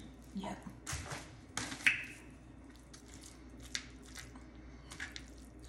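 Fork mixing spaghetti in tomato sauce in a bowl: soft wet squishing and a few short clinks and scrapes of the fork against the bowl, the loudest with a brief ring about two seconds in.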